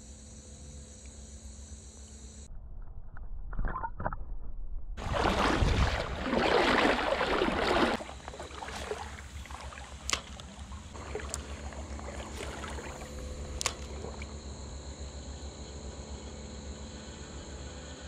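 Water splashing and sloshing for about three seconds in the middle, followed by a couple of sharp clicks.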